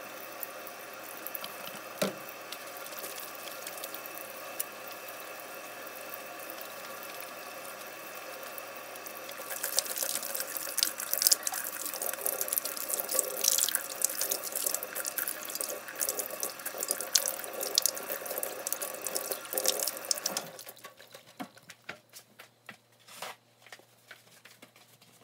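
Kitchen faucet running into a stainless steel sink while hands are washed under the stream. The splashing gets louder about ten seconds in, and the water stops suddenly about twenty seconds in.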